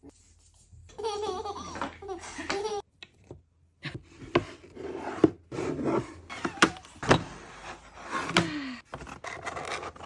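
A toddler laughing and vocalizing, with sharp clicks and knocks scattered through the second half.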